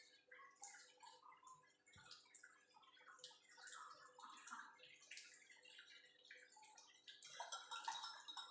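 Faint liquid sounds of a spoon stirring honey into a warm herbal cough mixture: many small, irregular splashes and drips.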